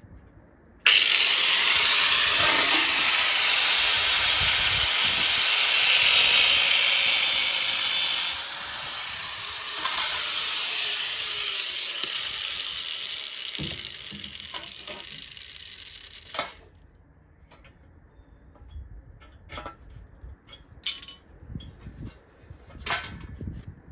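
Angle grinder cutting the steel of a VW Beetle's rear quarter panel. It starts suddenly about a second in and cuts loudly for about seven seconds. It then runs on lighter and winds down over several seconds, its pitch falling. Near the end there are a few light clicks and taps.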